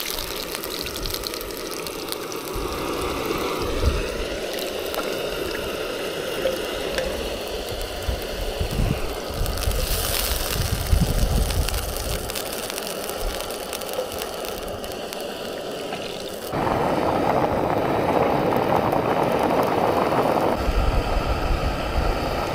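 Gas camp stove cooking outdoors, a steady hiss with wind gusting on the microphone. About three-quarters of the way in it switches abruptly to a louder, close rush of water boiling hard in a small pot.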